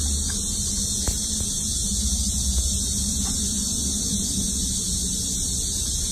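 Steady high-pitched hiss with a low hum underneath, and a faint click about a second in.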